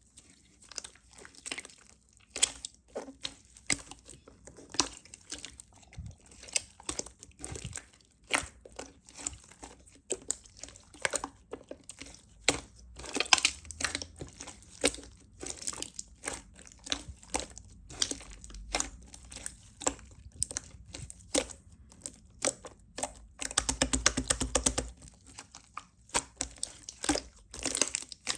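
Slime being squeezed and poked by hand, giving a steady stream of small sticky crackles and clicking pops, with a denser burst of crackling near the end.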